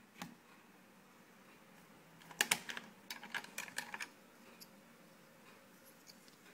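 Sharp plastic clicks and taps from a plastic projection alarm clock's casing being handled: one click just after the start, then a quick cluster of clicks between about two and four seconds in.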